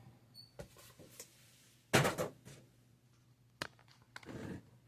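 Toy packaging being handled during an unboxing: a few light knocks and clicks, a short burst of rustling about two seconds in, a sharp click past the middle and a soft rustle near the end.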